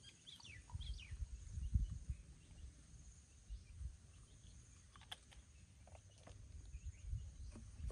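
Wind rumbling on the microphone in uneven gusts, with a few short high chirps in the first second and a sharp light click about five seconds in.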